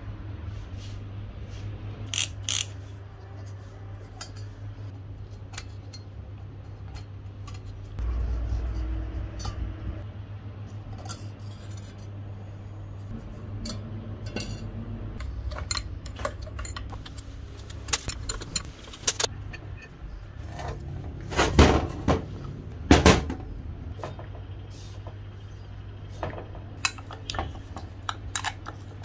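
Metal parts and hand tools clinking and knocking at irregular intervals, with a few sharper metal strikes, the loudest near the end, over a low steady hum.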